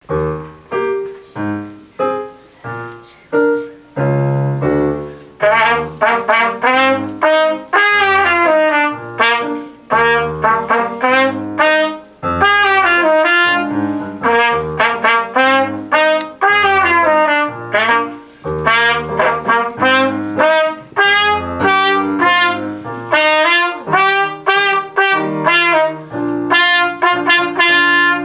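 A trumpet plays a melody with piano accompaniment. The piano plays alone for about the first five seconds, then the trumpet comes in with strong sustained notes.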